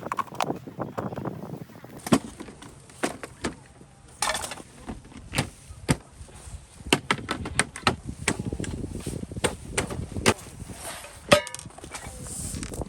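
Irregular knocks, clicks and clatter of objects being handled, one with a short ringing tone near the end.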